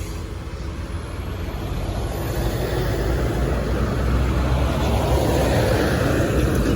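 Heavy diesel truck on the road, its engine and tyre rumble growing steadily louder over about five seconds as it comes closer, then easing slightly near the end.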